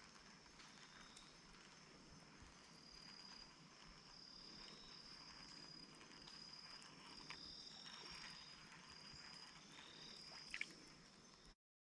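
Faint pond-side ambience of insects singing in steady high-pitched trills that break off and start again at slightly different pitches. A short high chirp sounds near the end, just before the sound cuts off abruptly.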